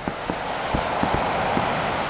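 Star mine fireworks display: a rapid string of dull bangs from shells launching and bursting, about seven in two seconds, over a rushing hiss that swells through the middle.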